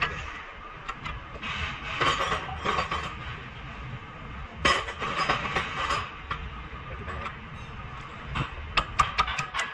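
Metal tools clinking and scraping against metal during work on car suspension parts, with a quick run of sharp clicks near the end.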